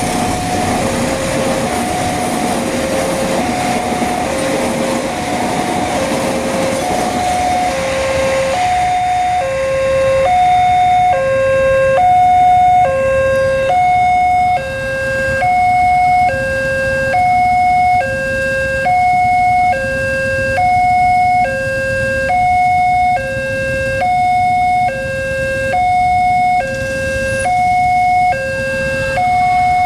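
Railway level-crossing warning siren sounding a two-tone electronic alarm, alternating evenly between a low and a high note, each held for just under a second. The rumble of a passing train runs under it and fades out about nine seconds in.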